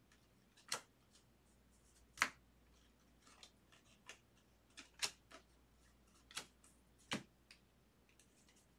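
Baseball trading cards being flipped off a stack one at a time and set onto a pile: faint, irregular sharp clicks and snaps, about ten in all, the loudest a little over two seconds in.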